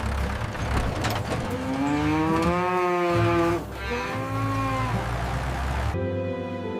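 A cow mooing twice: one long moo, then a shorter one right after.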